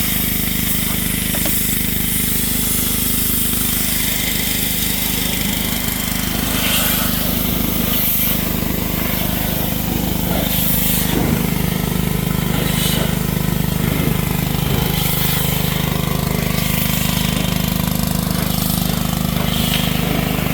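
Pressure washer running steadily: a constant motor drone under the loud hiss of the water jet spraying a Humvee's engine and chassis.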